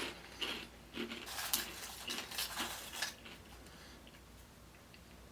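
Crisp crackling and light clatter of puffed microwave pork rinds being handled in a bowl for about three seconds, then quiet.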